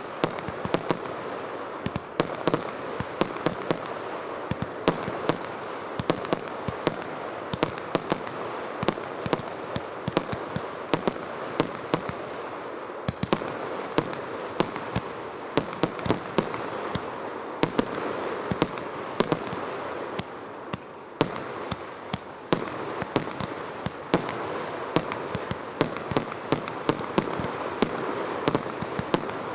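A multi-shot fireworks battery of 305 shots firing in rapid succession: sharp bangs and pops, several a second, over a continuous hiss, with a brief lull about two-thirds of the way through.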